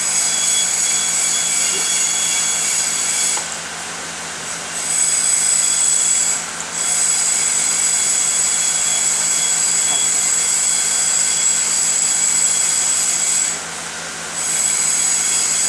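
A loud, steady hiss with high-pitched whining tones running through it. It dips away briefly about four seconds in, again near seven seconds, and about fourteen seconds in.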